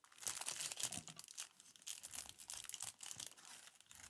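Clear plastic sleeves around makeup brushes crinkling and rustling as they are handled, a dense run of irregular crackles.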